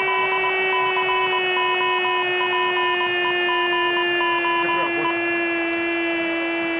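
A Spanish football commentator's drawn-out 'gol' cry for a goal: one long held note that sags slightly in pitch, over stadium crowd noise. A high beep pulses on and off beneath it until about five seconds in.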